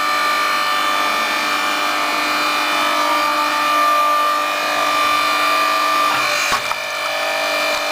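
Log splitter's motor and hydraulic pump running steadily with a constant hum, and a short knock about six and a half seconds in.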